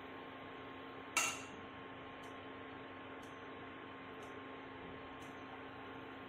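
A steel spoon clinks once against a dish about a second in, over a quiet, steady electrical hum.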